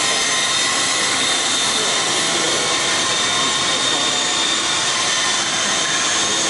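Small electric RC helicopter and quadcopter motors and rotors whirring: a steady, even whine with a hiss, several models flying at once.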